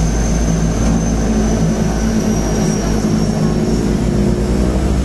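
Floatplane's propeller engines running steadily, heard from inside the cabin as it moves across the water on its floats, with a thin high whine over the low drone.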